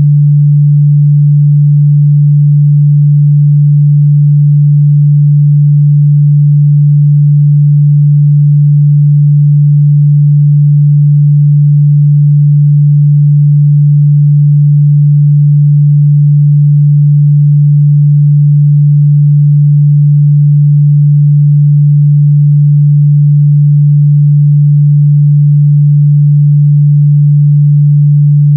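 Steady 146 Hz sine-wave test tone, a single low hum that holds at a constant pitch and level throughout.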